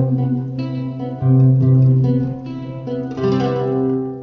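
Instrumental music with plucked-string notes over a held low note, a new chord struck a few times, fading out near the end.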